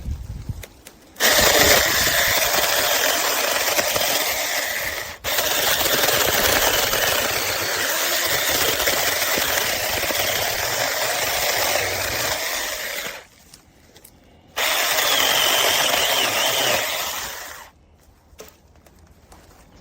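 HOPTO 6-inch cordless battery mini chainsaw running and cutting wood, in two runs: one of about twelve seconds with a momentary break near its start, then a shorter one of about three seconds.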